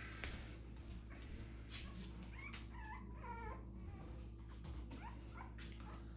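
Faint whimpering: a few short whines that rise and fall, about halfway through and again a little later, over a steady low hum.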